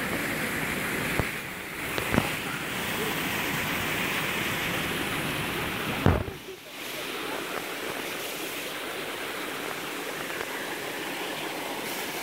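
Water rushing steadily over a small concrete weir into a pool, with a sharp knock about six seconds in.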